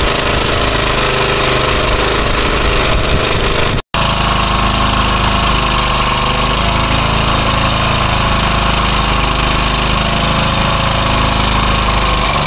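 A fishing launch's engine running loudly and steadily, with a clattering mechanical drone. The sound cuts out for an instant about four seconds in.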